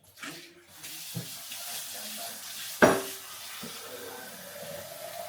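Kitchen tap water running into a sink, with a dull knock just after a second in and a sharp, loud clink of kitchenware about three seconds in that rings briefly.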